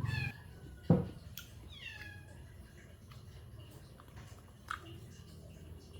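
Cat meowing several times in short, high calls that fall in pitch, with a sharp knock about a second in and a smaller one near the end.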